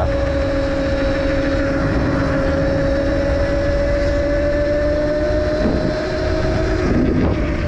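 A 72-volt electric pit bike's motor and drivetrain whining at cruising speed, with a lower second whine under it. The pitch sags a little in the middle, then climbs as the bike speeds up. Heavy wind rumble on the helmet-cam microphone runs under it all.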